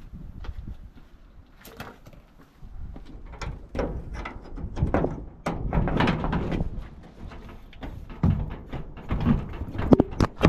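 A small old padlock being forced with hand tools: irregular metal knocks, scrapes and rattles, with a sharp loud knock near the end.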